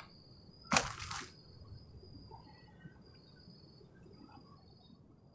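Insects trilling steadily at a high pitch, with a short sharp burst of noise in two quick parts about a second in.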